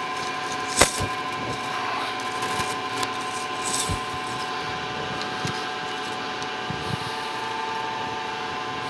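Monarch Model K metal lathe running steadily with a steel arbor spinning in the chuck, a constant mechanical hum with a few held tones. A single sharp metallic click comes about a second in.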